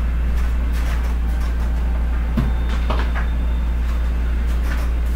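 Scattered light knocks and clatter of a juicer and other kitchen things being handled and put away, over a steady low hum.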